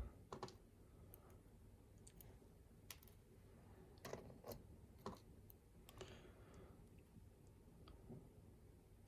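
Faint, scattered clicks of small metal lock parts being handled as a pin-tumbler lock is taken apart and its pins removed, about a dozen separate clicks.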